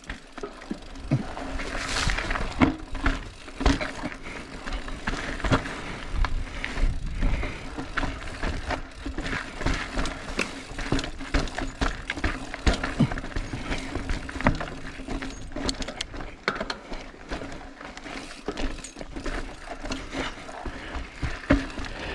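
Bicycle rattling and clicking over rough ground: many short irregular knocks and ticks, with a steady low hum and low rumbling underneath.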